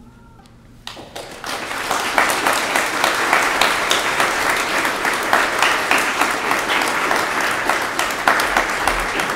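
Audience applause breaking out about a second in, swelling quickly into steady clapping.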